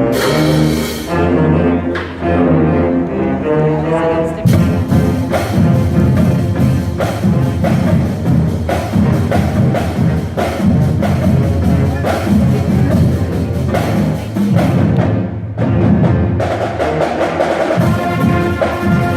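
High school marching band playing: held brass chords for the first few seconds, then the full band with drums keeping a steady beat. The music dips briefly about fifteen seconds in.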